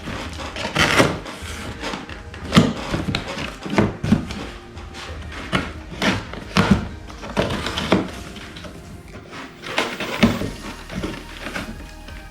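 Cardboard shipping box being cut open with a small pocket knife and handled: irregular knocks and taps from the box and its contents, over background music.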